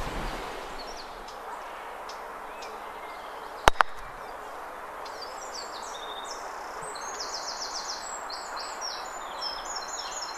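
A croquet mallet strikes the ball once with a sharp click about a third of the way in, followed a split second later by a fainter click as it glances off a second ball. Birds chirp in the background, mostly in the second half.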